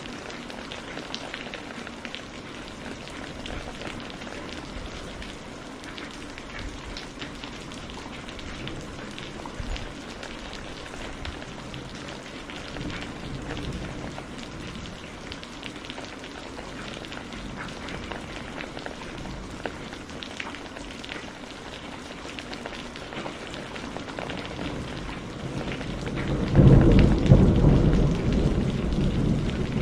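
Steady rain falling, with fine drop patter, and a loud roll of thunder that swells up near the end and keeps rumbling.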